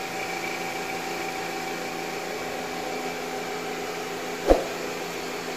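A steady machine hum holding several steady tones, with one short knock about four and a half seconds in.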